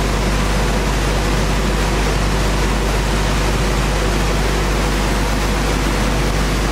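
Wood core board sanding machine running steadily: a loud, even hiss over a low hum.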